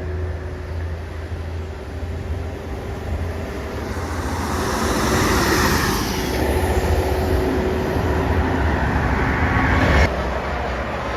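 Large bus engine running with road noise, a steady low rumble that swells as the bus comes close, then drops off suddenly about ten seconds in.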